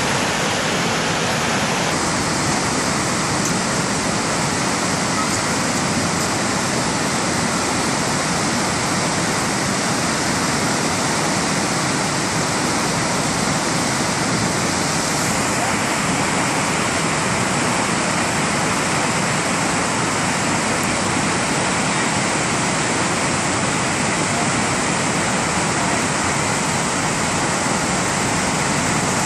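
Steady rushing of a river in flood, its whitewater churning through rapids, swollen by rain and snowmelt.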